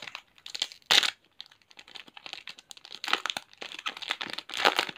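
Foil wrapper of a Pokémon TCG booster pack crinkling and tearing as it is opened by hand, in irregular crackly bursts with a sharp loud crackle about a second in.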